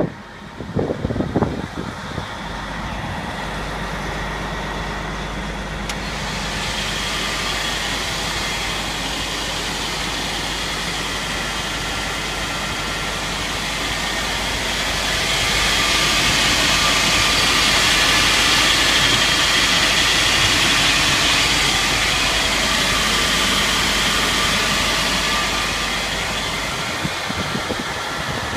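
Air-conditioning unit and blower fan of a Prevost H3-45 coach running steadily: a whirring hiss with a faint whine over a low, even hum. It grows louder through the middle and eases off near the end.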